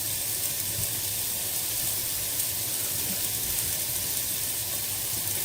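Chorizo and onion frying in a pan, giving a steady sizzle.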